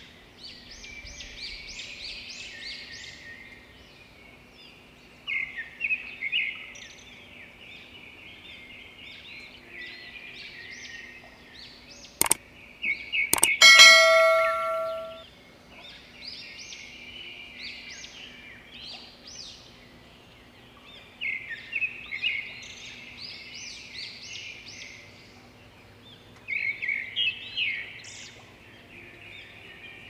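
Brahminy starlings singing in repeated bouts of chattering, warbling phrases with short pauses between. About twelve seconds in comes a click, then a loud bell-like ding that rings for about a second and a half, an added subscribe-button sound effect.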